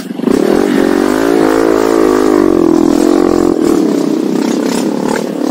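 Honda CRF150L's single-cylinder four-stroke engine opening up suddenly as the bike pulls away, then running loud under throttle, its pitch wavering up and down as the rider works the throttle.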